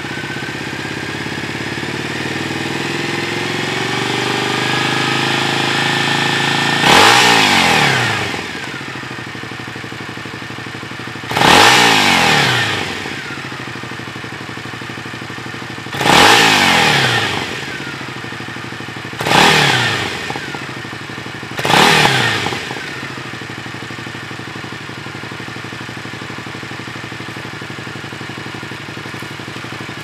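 2015 Triumph Speedmaster's 865 cc parallel-twin through its stock exhaust. It runs at held revs that creep slowly upward for several seconds, then is revved sharply five times, each rev shooting up and falling back, before it settles to a steady idle.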